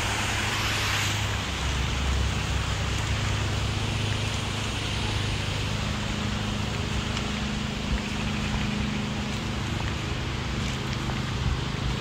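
Steady outdoor city noise: a constant traffic rumble with wind on the phone's microphone.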